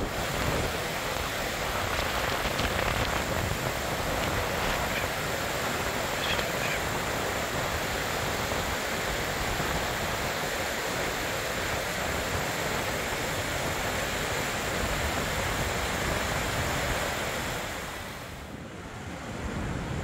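Gullfoss, a large two-tier glacial-river waterfall, rushing steadily with heavy, even white-water noise. It softens briefly near the end, then returns at full strength.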